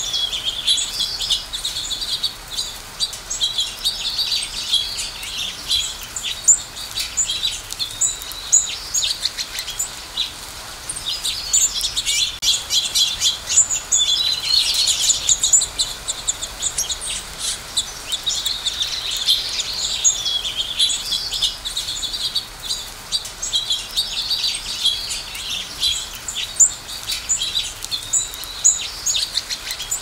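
A flock of small songbirds chirping and twittering continuously, many short calls and warbled phrases overlapping.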